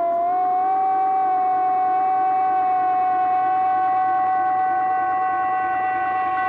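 One sustained musical note with overtones, held steady in pitch: a drone opening the background music.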